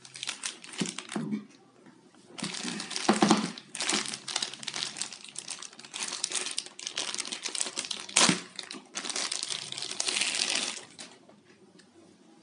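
Thin clear plastic bag crinkling and rustling as it is pulled open and stripped off a metal bicycle kickstand, in irregular bursts with one sharper, louder crackle about eight seconds in; it stops about a second before the end.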